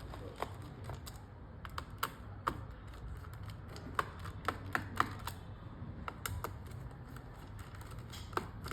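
Irregular small clicks and taps of a Phillips screwdriver working out the bottom-panel screws of a laptop, with the screws and tool handled against the case.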